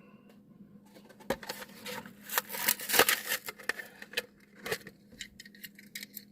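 Hot Wheels blister pack being opened by hand: irregular crackling, clicks and tearing of the plastic bubble and cardboard card, busiest about three seconds in.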